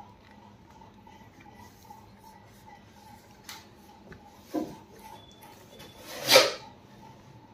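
Handling noise from a soundbar's casing being turned over in the hands: a dull knock about halfway through, then a louder rubbing scrape lasting about half a second near the end.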